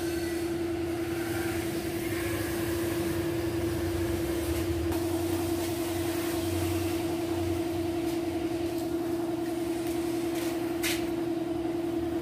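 A steady machine hum holding one pitch, with a short sharp click near the end.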